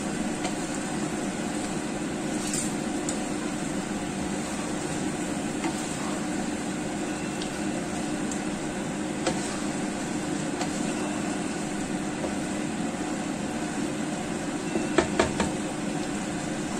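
A plastic spatula stirs chicken wings and potato curry in a nonstick pan, with light knocks of the spatula against the pan. Three knocks come close together near the end. A steady hum runs underneath.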